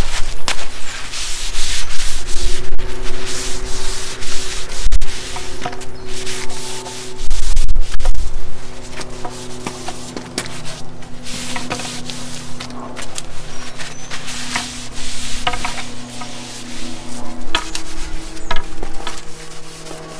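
Paper towel rubbed back and forth along a pine plank, wiping off excess water-based grey wood stain, in repeated strokes with short pauses between them.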